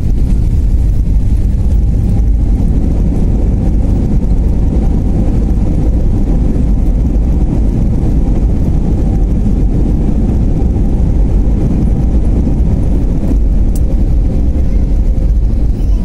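Steady loud rumble inside the cabin of a jet airliner rolling down the runway just after touchdown: engine noise mixed with the landing gear rolling on the runway, with a faint steady hum above it.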